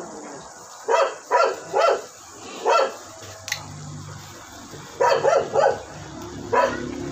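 A dog barking repeatedly, in short bursts of two or three barks.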